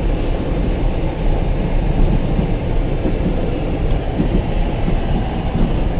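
Pickup truck driving slowly with a heavy load in the back: a steady low rumble of engine and road noise, with a few faint knocks.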